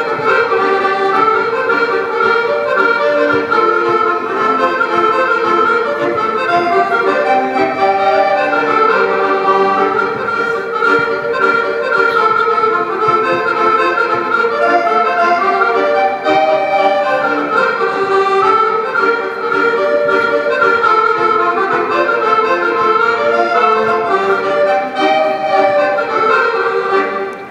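Scottish country dance band music led by accordion, playing a continuous tune for the dancers; the music dies away at the very end.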